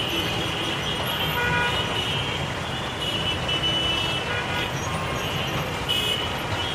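Dense city street traffic noise, with short high tones sounding now and then over it.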